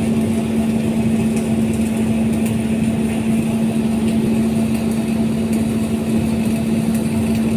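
Arc welding: a steady crackle from the arc over a constant hum.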